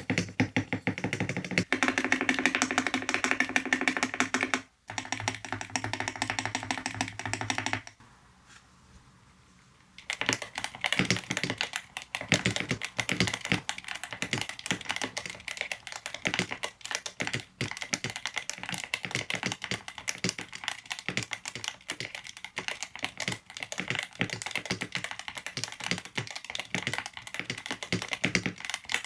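Rapid typing on a Yunzii C68 mechanical keyboard with Milk linear switches, a dense run of key clacks. Background music plays under the typing at first, then cuts out. About eight seconds in there is a two-second pause, after which the typing resumes alone.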